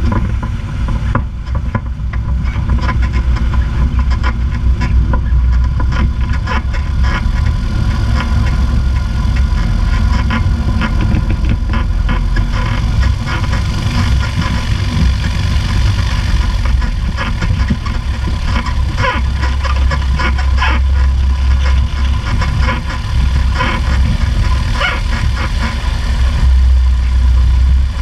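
Piper Pacer's piston engine and propeller running steadily at taxi power while the ski-equipped plane slides over snow, with scattered short crackles over the engine sound.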